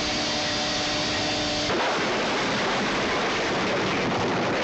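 A speedboat's engine whining steadily as the boat flies through the air. It cuts off abruptly under a dense, long crash as the boat smashes through a wooden shack.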